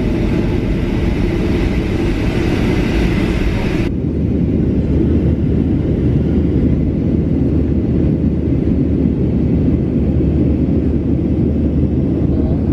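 Steady low rumble of an airliner heard from inside the cabin. About four seconds in, the hiss above it cuts off suddenly, leaving the low rumble.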